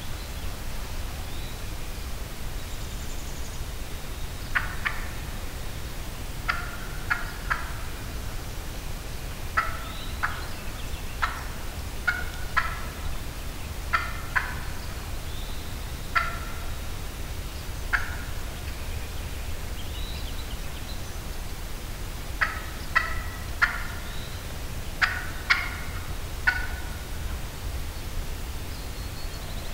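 Hen wild turkey giving short, sharp clucks, singly and in quick groups of two or three every second or two, starting a few seconds in, over a steady low rumble.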